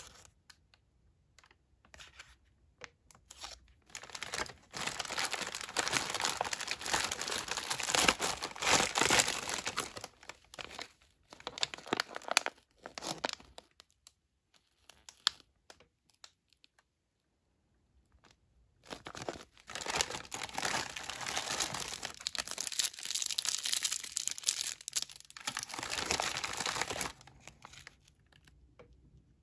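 Crinkling and rustling of MRE ration packaging, foil-laminate pouches and plastic wrappers, being picked up and handled, in two long stretches with a pause of a few seconds between them.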